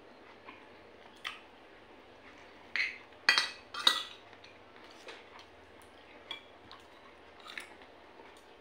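Spoon and fork clinking and scraping against a plate and bowl while eating: a handful of sharp, separate clinks, the loudest few together about three to four seconds in.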